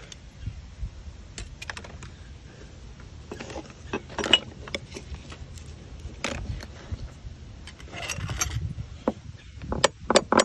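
Metal wedges clinking and scraping as they are worked into the sealant gap between a through-hull transducer and the boat's hull. Just before the end a run of quick, sharp taps begins, as a wedge is tapped in.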